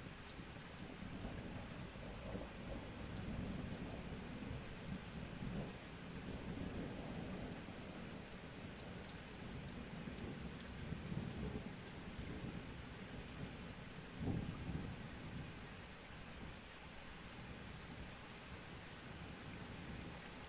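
Thunder rumbling in long low rolls over a steady hiss of rain, with one shorter, sharper thump about fourteen seconds in.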